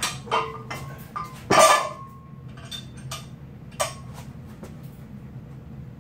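Metal clinks and clanks of a steel loading pin, weight plates and a carabiner being handled while a hub lift is hooked up and loaded. There are several sharp clinks with brief ringing; the loudest comes about a second and a half in, and a few more follow over the next couple of seconds.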